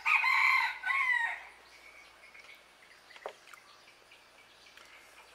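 A rooster crows once, a single crow about a second and a half long, right at the start.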